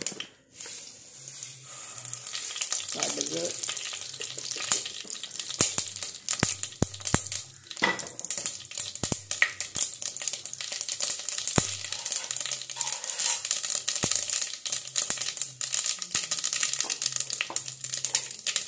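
Hot oil sizzling in a stainless-steel pressure cooker as mustard seeds splutter in it: a dense crackle with many sharp pops, building up after the first couple of seconds.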